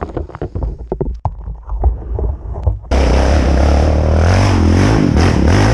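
Irregular knocks and rattles for the first three seconds. About three seconds in, a quad's engine comes in suddenly, running loud at high revs close by, its pitch wavering up and down.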